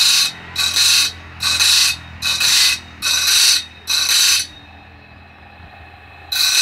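Electric grinder's abrasive wheel sharpening the teeth of a sawmill bandsaw blade one tooth at a time: about seven short grinds, roughly one every 0.8 seconds, over the motor's steady hum, with a break of nearly two seconds near the end where only the motor runs.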